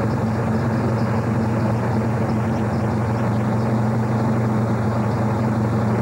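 A race truck's engine idling with a steady, even drone, heard from inside its cab.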